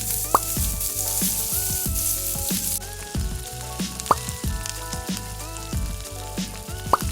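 Food frying in hot oil in a pan, with a loud sizzle for the first three seconds or so that then settles to a lighter crackle. Background music with a steady beat plays throughout.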